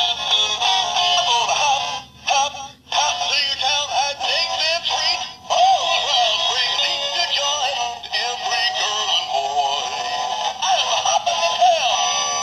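Battery-powered singing toy dog playing a synthesized song through its small built-in speaker, thin with almost no bass, with a short break about two seconds in.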